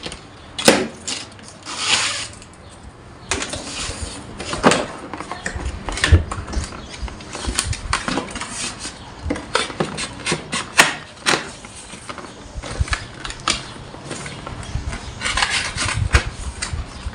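A cardboard box and its plastic strapping being handled and opened: rustling and scraping broken by many irregular sharp clicks and knocks as the drill's hard plastic case is worked loose.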